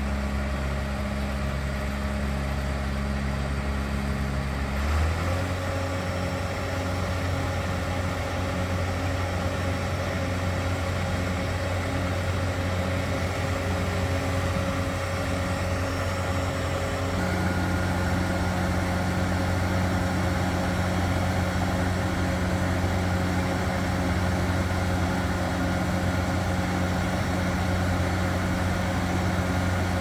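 Blaw-Knox PF400-A tracked asphalt paver's John Deere four-cylinder turbo diesel running steadily. Its speed steps up about five seconds in, and its tone shifts again a little past halfway and holds there.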